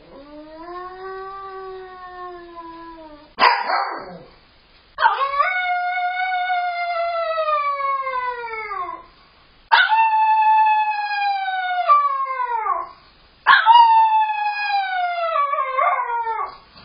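A dog howling while left home alone: four long howls, each sliding down in pitch, the first one fainter. A short sharp bark comes between the first and second howl.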